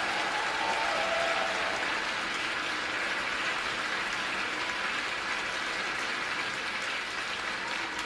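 Arena audience applauding steadily.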